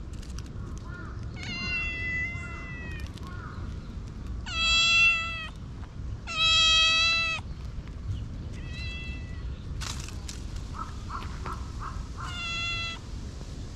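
Brown tabby-and-white cat meowing at a person: five meows of about a second each, the second and third the loudest.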